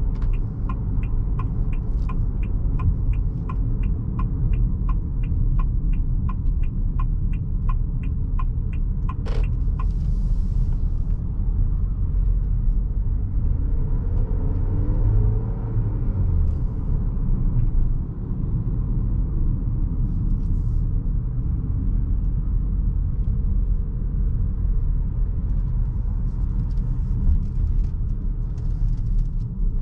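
Cabin sound of the Haval H6-GT's 2.0-litre turbo four-cylinder driving at low speed: a steady low engine and road rumble. For the first nine seconds or so the turn-signal indicator ticks, about two or three ticks a second, ending in a single sharp click.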